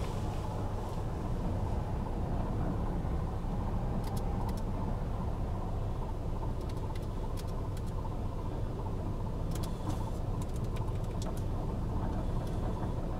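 Steady low rumbling noise, with a few faint clicks scattered through it.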